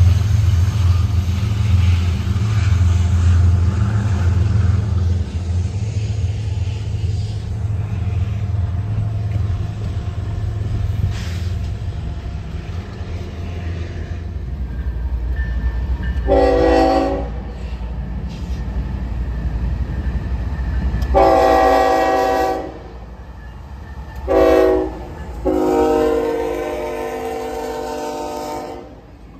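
A freight train rolling past with a steady deep rumble, then a diesel locomotive horn sounding the grade-crossing signal: four blasts, the third short and the last the longest.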